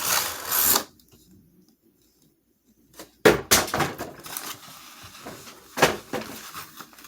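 Packaging being handled while a toy is unboxed: a rustle in the first second, a pause, then a string of sharp knocks and clatters as the cardboard box and plastic parts are pulled out and set down.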